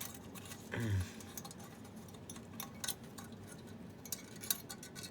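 Scattered small clicks and light metallic taps from a telephone hookswitch's contact springs, plates and wires being pulled out and handled, one sharper click about four and a half seconds in. A brief murmur from a voice comes about a second in.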